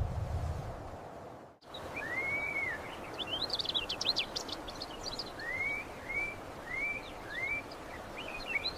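A low whoosh fades out over the first second and a half, then birds sing over a light outdoor background. The song mixes quick high chirps with a short rising-then-falling whistle repeated about four times.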